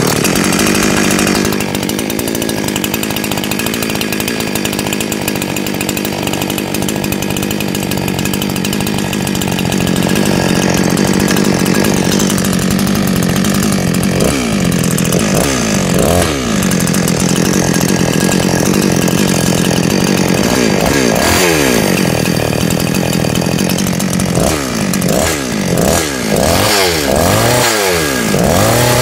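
Total 49cc two-stroke gasoline chainsaw engine idling steadily. From about halfway through, the throttle is blipped again and again, so the revs rise and fall, more and more often near the end.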